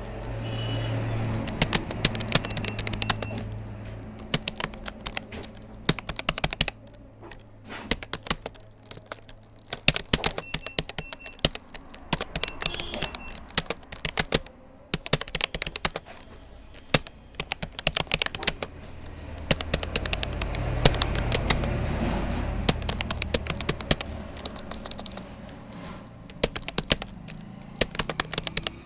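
Rapoo computer keyboard being typed on at a touch-typing pace: runs of key clicks with short pauses between them. A low rumble swells underneath twice.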